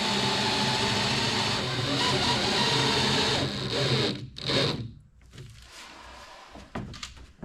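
A handheld electric power tool's motor running steadily, then switched off and winding down about four seconds in, followed by a few light knocks.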